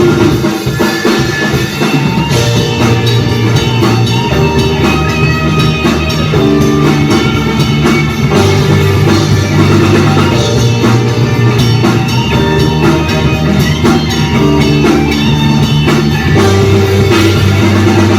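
Rock band playing live, with drum kit and guitar, loud and steady.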